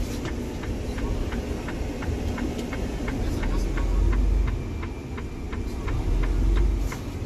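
Low, steady rumble of a 2020 Freightliner Cascadia's idling engine heard inside the sleeper cab, with a light ticking about three times a second throughout.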